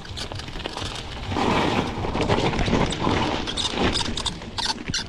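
Mountain bike rolling down a dirt trail: tyre noise on the ground with scattered rattling clicks from the bike, and wind rumbling on the microphone. The noise swells about a second and a half in and eases off near the end.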